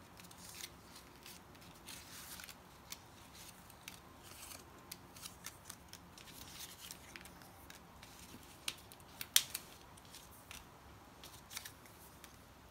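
Die-cut cardstock ephemera pieces being handled and shuffled on a wooden tabletop: light paper rustles with scattered small clicks and taps, the sharpest about nine seconds in.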